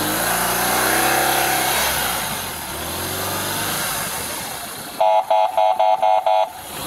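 Police motorcycle's engine accelerating, its pitch rising over the first two seconds, then easing off. Near the end, a quick run of about six short, identical electronic beeps.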